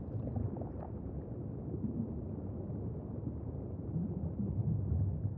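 Low, steady rumble of a logo-sting sound effect, with no tune in it, growing slightly louder near the end.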